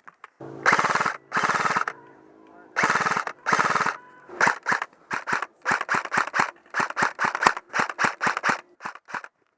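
Airsoft guns firing: four long full-auto bursts of rapid clicking in the first four seconds, then a run of single shots and short bursts at about two to three a second.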